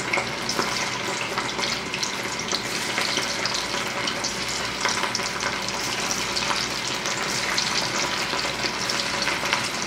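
Chicken-mince balls deep-frying in hot oil in a wok: a steady, dense sizzle full of small crackles.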